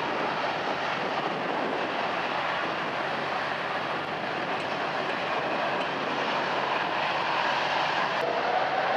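Airbus A330 jet engines running on the runway with a steady rush; near the end a whine rises in pitch as the engines spool up for the takeoff roll.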